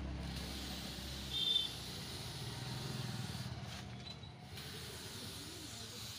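Hose-fed paint spray gun hissing steadily as compressed air sprays paint. The spray cuts out briefly around four seconds in, and there is a short, high whistle about a second and a half in.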